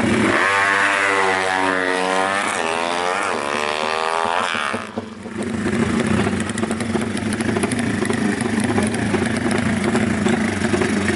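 Drag-race motorcycle engine revved hard and held high for about four and a half seconds, its pitch swinging up and down, then dropping away suddenly. After that, engines run on with a rough, steady idle.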